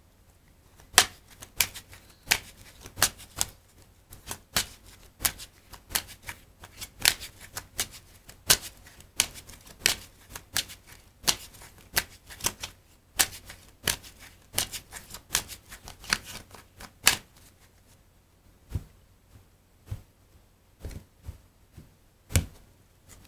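Deck of Spanish playing cards being shuffled by hand: sharp card slaps about two a second, stopping after some fifteen seconds. A few sparser taps of the cards on the table follow near the end.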